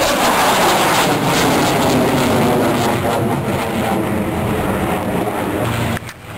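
An airplane flying past, loudest just after the start and easing off gradually, before the sound drops away abruptly near the end.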